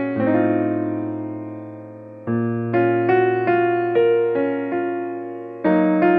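Slow, gentle piano music: chords ring and fade, with fresh chords struck about two seconds in and again near the end.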